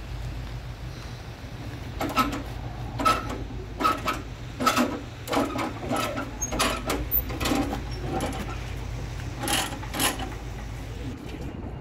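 Steel tie-down chain clanking and rattling as it is worked loose from a wheel loader on a lowboy trailer: about a dozen irregular metallic clanks. A steady low rumble runs underneath.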